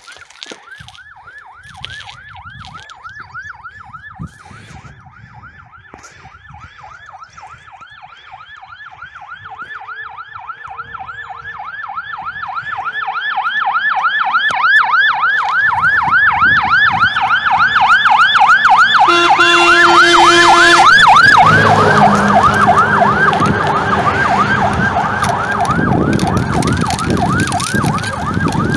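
Fire engine siren in a fast, repeating yelp, growing louder as the truck approaches. About two-thirds of the way in, a horn sounds steadily for about two seconds, and then the engine rumble comes in under the siren as the truck passes.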